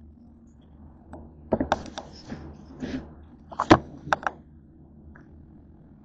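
A run of sharp clicks and knocks at the table, bunched between about a second and a half and four seconds in, the loudest near the end of the run: the camera being handled and set back down, and a fork knocking against a plate.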